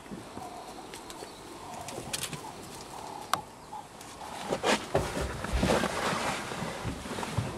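A few soft, short cooing calls, then a sharp click and rustling with low bumps over the last few seconds.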